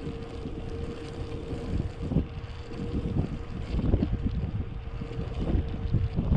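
Wind buffeting the microphone of a moving bicycle rider, a gusty low rumble that swells and falls. A thin, steady hum runs under it and stops near the end.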